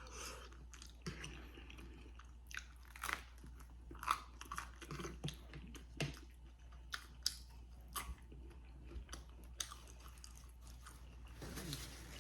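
A person chewing a mouthful of food close to the microphone: irregular soft wet clicks and smacks of the mouth, with a few sharper crunchy ones.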